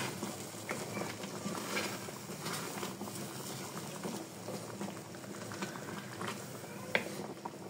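Chicken karahi, chicken in tomato purée and oil, bubbling in the pan with many small pops as it cooks; a single sharper click about seven seconds in.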